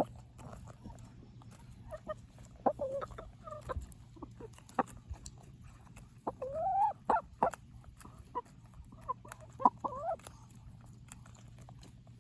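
Domestic chickens clucking, with short bending calls coming in three clusters, among scattered sharp taps.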